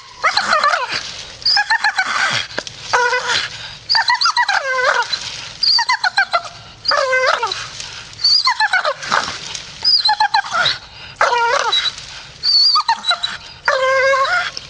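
Staffordshire bull terrier grumbling and whining: a string of about ten short, pitch-bending moans and yips.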